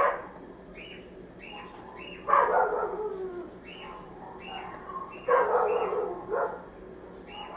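A dog barking repeatedly in short yaps, with two louder, longer barks partway through.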